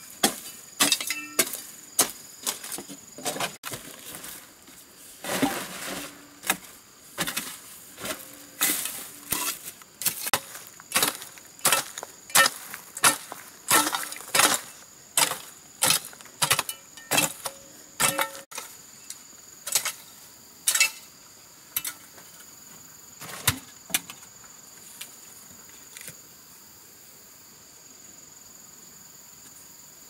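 A long-handled metal hoe striking and scraping into earth, about one stroke a second, the strokes stopping a little after twenty seconds in. A steady high drone of insects runs underneath and is all that remains near the end.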